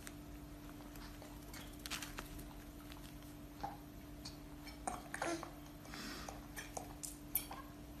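Faint scattered clicks and ticks of a cockatiel's beak nibbling at a person's fingertips, over a steady faint hum.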